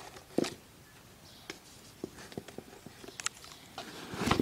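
Hands handling a cardboard box as it is opened: scattered light taps and clicks, a knock about half a second in and a louder thump near the end.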